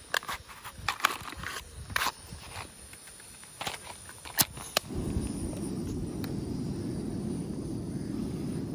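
Small clicks and scrapes of a matchbox being opened and a match struck, then about five seconds in a Campingaz camping gas stove lights and its burner runs with a steady low rush of flame.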